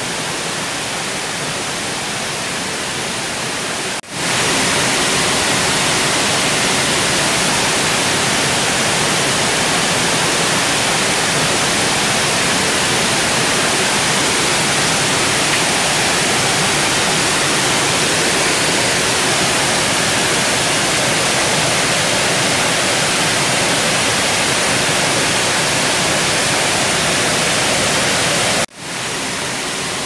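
Steady rush of a waterfall, an even hiss of falling water. About four seconds in it cuts out for an instant and returns louder and brighter, then drops back to the quieter rush shortly before the end.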